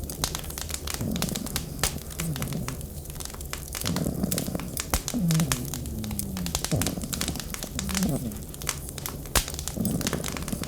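Wood fire crackling and popping in a fireplace or stove, with many sharp snaps at irregular intervals. Underneath it, low moaning tones from the blizzard wind slide up and down in pitch.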